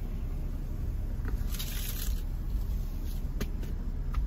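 Steady low rumble of a car running, heard from inside the cabin, with a few faint clicks and a brief hiss around the middle.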